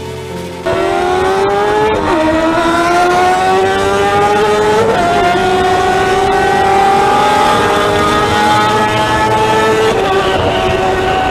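Motorcycle engine accelerating hard, its pitch climbing steadily and dropping sharply at upshifts about two and five seconds in and again near the end.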